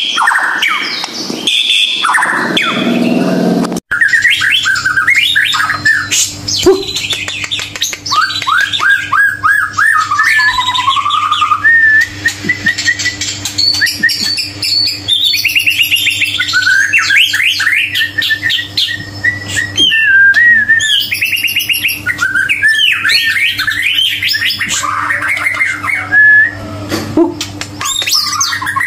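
White-rumped shama (murai batu) singing a long, varied song of rapid whistles, trills and chattering notes, played as a lure recording to set other shamas singing. The song starts after an abrupt cut about four seconds in, over a steady low hum.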